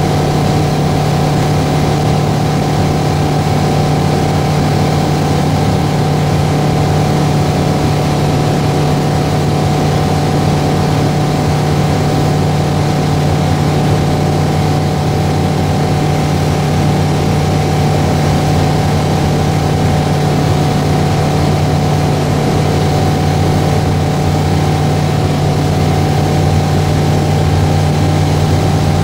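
Aero AT-3 light aircraft's piston engine and propeller running steadily in flight, heard inside the cabin as an even drone with a few fixed tones over a steady noise.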